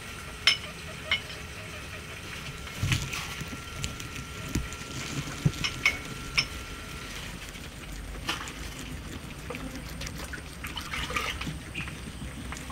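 Guinea pig chewing and snipping fresh grass blades: irregular crisp snaps and crunches, sometimes several in quick succession, over a faint steady hum.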